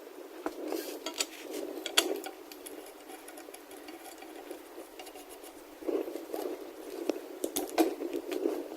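Metal hand tools clinking and knocking against metal, with scraping and handling noise between the strikes; the sharpest clinks come about two seconds in and again near the end.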